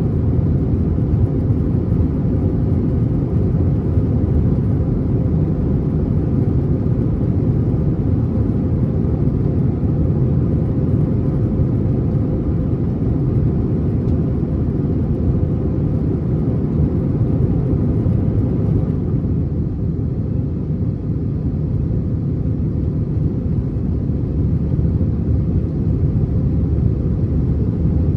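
Steady engine and airflow rumble of an Airbus A321 heard inside the passenger cabin, heavy and low, with the higher hiss easing slightly about two-thirds of the way through.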